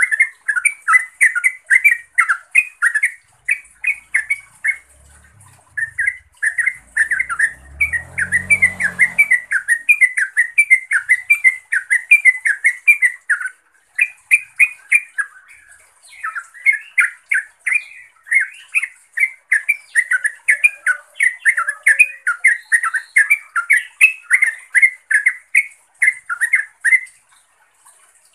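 Yellow-vented bulbul (trucukan) calling: fast runs of short repeated notes, broken by brief pauses about three and a half seconds in, about fourteen seconds in, and near the end.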